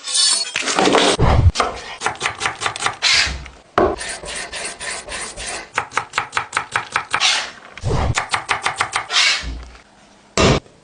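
Knife chopping on a cutting board in quick runs of about six strokes a second, broken by a few louder, longer thuds or scrapes.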